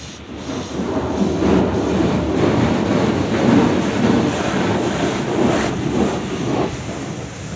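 An automatic car wash spraying water against the car's roof and windows, heard from inside the cabin as a loud rumbling drumming. It swells about a second in and eases off near the end.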